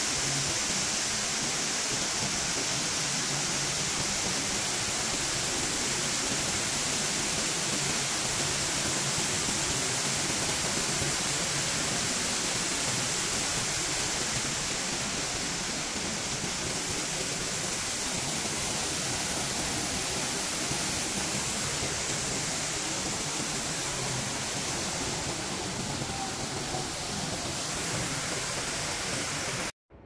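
Steady rushing of falling water, an even hiss strongest in the highs, easing slightly about halfway through and cutting off abruptly just before the end.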